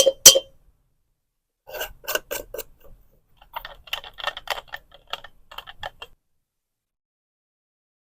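A series of sharp clicks: three loud ones at the very start, then two runs of quicker, quieter clicks that stop about six seconds in.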